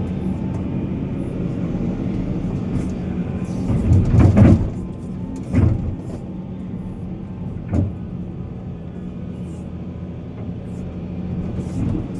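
A heavy diesel earthmoving machine running steadily. Loud clunks and knocks come about four seconds in, with smaller ones about a second and a half and three and a half seconds later, typical of metal work parts and rock being handled.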